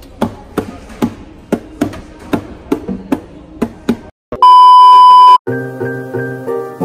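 Nylon-string classical guitar strummed in steady strokes, about two or three a second, for about four seconds. Then a loud, steady electronic beep lasts about a second, and piano chords from background music follow.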